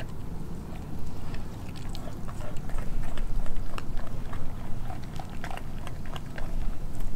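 Doberman chewing raw pork skin: a quick, uneven run of short wet smacks and clicks starting about a second in.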